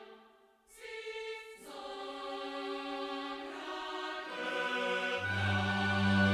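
Background music with held, choir-like voices. It dips briefly about half a second in, and a deep bass note comes in near the end.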